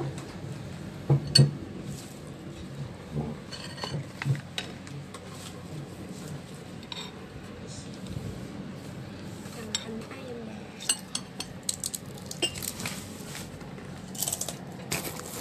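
Ceramic bowls being moved and set down on a table, clinking and knocking, with two louder knocks about a second in and more scattered clinks later.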